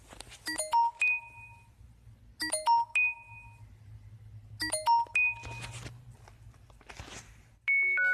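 A smartphone's speaker playing a short electronic chime tone three times, about two seconds apart: a quick flurry of high notes settling onto a held note each time. Near the end a different tone starts, a run of notes stepping downward.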